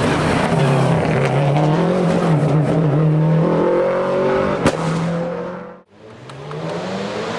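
Race car engine running hard at full throttle, its pitch climbing and dropping, with a sharp crack about two-thirds of the way through. The sound then cuts out abruptly, and another race car's engine comes in, rising.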